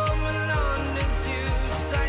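Background pop music with a steady beat, about two kick drums a second, under a gliding melodic line.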